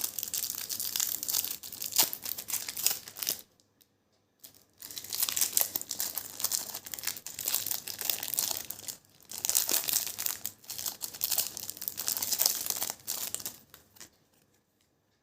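A trading-card pack's plastic wrapper being torn open and crinkled by hand, in two stretches of crackling with a short pause about three and a half seconds in.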